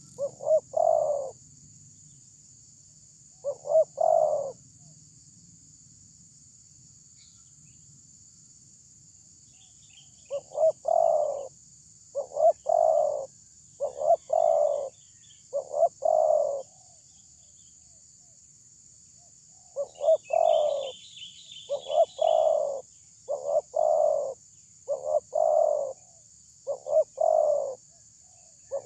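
Spotted dove cooing its deep repeated phrase, about a dozen phrases of roughly a second each: a pair near the start, then two runs in quick succession with a pause between. A small bird chirps faintly now and then.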